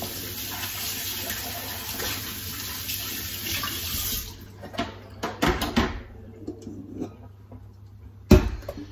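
Kitchen tap running into the sink as large mixing bowls are washed by hand; the water is turned off about four seconds in. Several knocks and clatters follow, with one sharp, loudest knock near the end.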